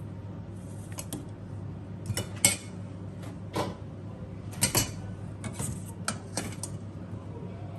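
Metal serving utensils clinking and tapping against a ceramic plate: sharp clinks in small irregular clusters, the loudest about two and a half seconds in, over a steady low hum.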